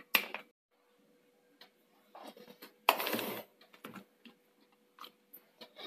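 Sparse light clicks and knocks from handling a mixer-grinder jar with a clip-on lid, with one short scrape about three seconds in.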